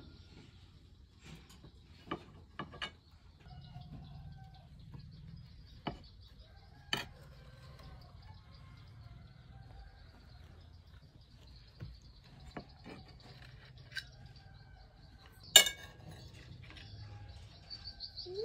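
Knife blade clicking and tapping against a ceramic plate as a soft cake is cut into wedges, a few scattered light clicks with one sharper clink about three-quarters of the way through. Faint bird chirps in the background.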